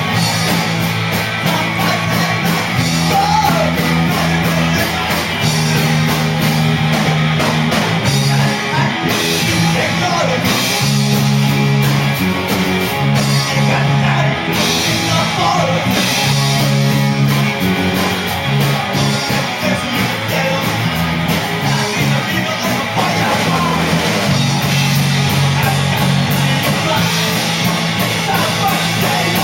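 Rock band playing live, loud and steady, with guitar and a singer.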